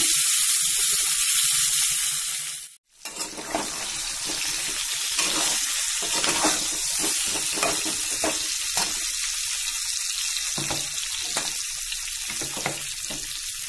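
Stuffed small brinjals sizzling as they fry in a metal kadhai, with a spoon now and then scraping and clicking against the pan as they are stirred. The sizzle drops out for a moment about three seconds in, then carries on.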